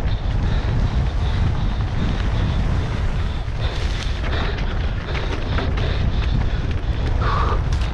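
Wind buffeting the microphone with a heavy rumble, over the rattle and clatter of a mountain bike descending a rough trail at speed: tyres over dirt and rocks, with frequent chain and frame knocks. A brief higher-pitched squeak comes near the end.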